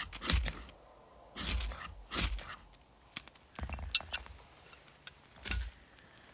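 Short scraping strokes at a small fire lay of wood shavings, about three in the first two and a half seconds, as the tinder is lit. Then light clicks and a sharp tick as the small flame catches, and one more stroke near the end.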